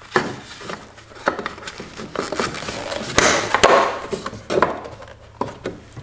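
Hard plastic side cover of a Minn Kota PowerDrive trolling motor mount being fitted back on by hand: scattered clicks and knocks of plastic, with a rubbing scrape about three seconds in and a sharp click just after it.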